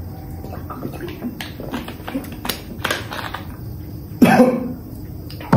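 A person gulping a soft drink from a plastic bottle, with soft swallowing clicks, then one loud throaty exhale about four seconds in, coughing after a mouthful of spicy noodles.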